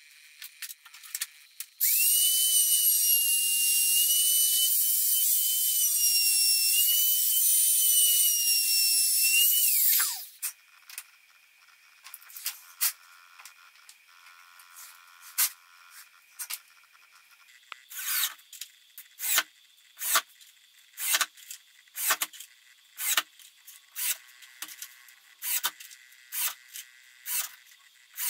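A power tool's electric motor runs steadily with a high whine for about eight seconds, then spins down with a quick fall in pitch. A series of sharp clicks and knocks follows, about one a second towards the end.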